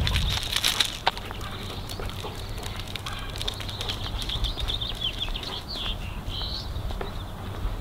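Birds chirping and singing in a high wavering band, with many short, light clicks and taps scattered throughout.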